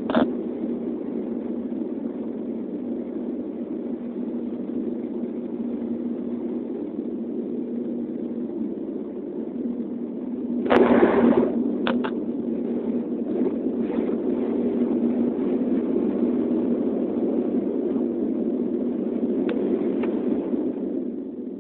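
Steady drone of a LIAT turboprop airliner's engines and propellers heard inside the cabin, with a steady low hum in it. About halfway through there is a brief loud noise, and a few short clicks.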